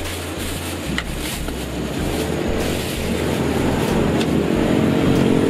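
A motor vehicle engine running, growing louder through the second half, with a few sharp clicks over it.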